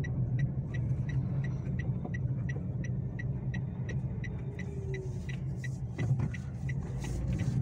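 Steady low hum of a car running, with a regular high-pitched tick repeating about three times a second.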